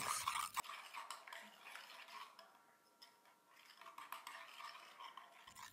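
Small metal whisk stirring a thick gelatin and sugar syrup mixture in a glass bowl, a faint scraping and light clinking against the glass. It is loudest at first and dies down after about a second, carrying on faintly.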